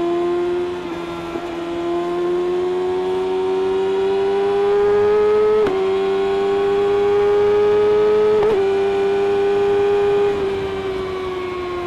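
Kawasaki ZX-6R inline-four engine through an Akrapovic exhaust, revving high under acceleration. The pitch climbs steadily, dips briefly at two upshifts about halfway through and again about three quarters through, then falls as the throttle is rolled off near the end.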